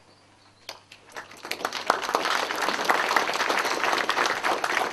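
Audience applauding. The clapping starts about a second in, quickly fills out into dense clapping from many hands, and begins to thin near the end.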